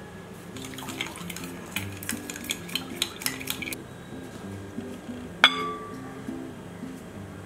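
A utensil stirring liquid in a glass mixing bowl, making a quick, uneven run of clinks against the glass for about three seconds. Then, about five and a half seconds in, one sharp, ringing glass-on-glass clink as a glass bowl of flour knocks the mixing bowl while it is tipped in.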